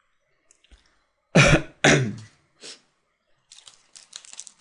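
A person coughing twice, sharply, then once more softly, followed near the end by a quick run of light clicks at the computer.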